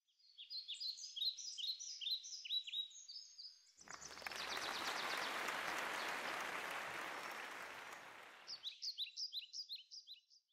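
Birds chirping in quick, high, falling notes. About four seconds in, a rushing noise swells up and slowly fades before cutting off, and then the chirping returns.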